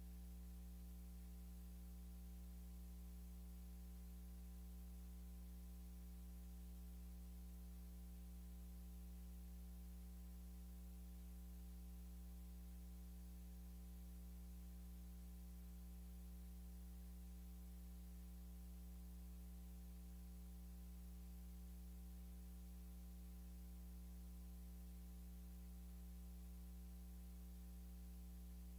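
Near silence: a faint steady electrical hum with a light hiss, unchanging throughout.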